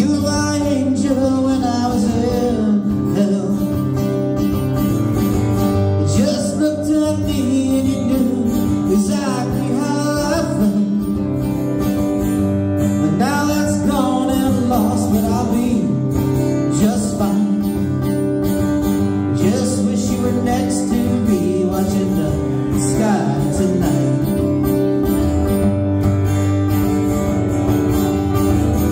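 Live acoustic duo: two guitars strummed and picked together, with a man singing over them.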